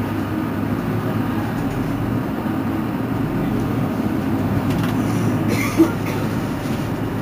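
Mercedes-Benz Citaro C2 city bus running, heard from on board: a steady low drone of drivetrain and road noise, with one brief knock just under six seconds in.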